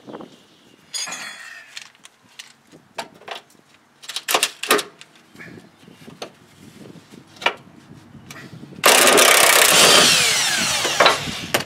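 Milwaukee M18 cordless impact wrench running for about two and a half seconds near the end, spinning the nut off a rear shock absorber's upper mounting bolt, which has no tension on it. Before that come scattered light metal clinks and knocks as the socket is fitted.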